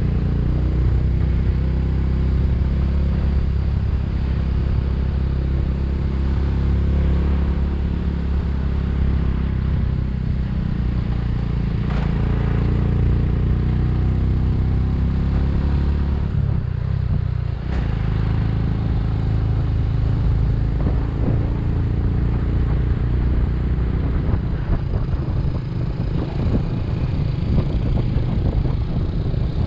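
Motorcycle engine running steadily under way, heard from on the bike, with road noise; the engine note dips and changes briefly about seventeen seconds in.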